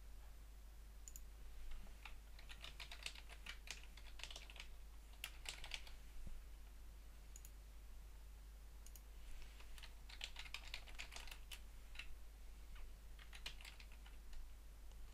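Faint computer keyboard typing in two bursts of quick keystrokes, with a few single clicks in between.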